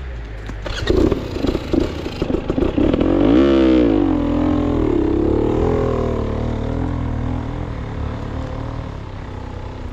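Off-road motorcycle engine on a rough forest trail: irregular, choppy throttle blips, a quick rev up and back down about three seconds in, then running at a steadier, wavering pitch that slowly fades.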